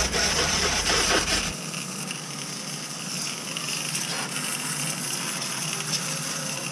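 Water jet from a garden hose spray nozzle hitting a mini bike's engine casing and the wet paving, a steady hiss that drops a little about a second and a half in.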